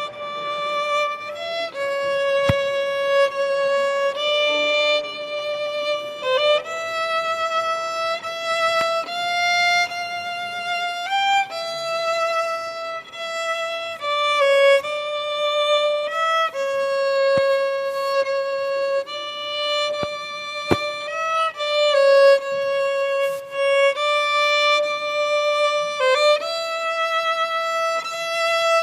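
A solo violin playing a slow melody, holding each note before moving to the next.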